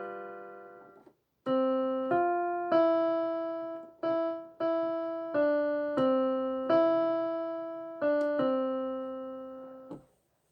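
Piano played slowly. A chord dies away, then after a brief pause comes a string of two-note chords about half a second apart, each ringing and fading. The last chord is held and then cut off.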